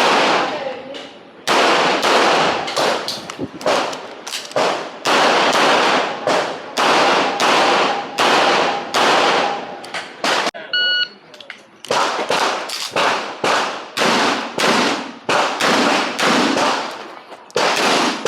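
Pistol shots fired in rapid strings during an IPSC handgun course of fire, each crack followed by a short echo. There is a brief pause about halfway, with a short high beep, before the firing resumes.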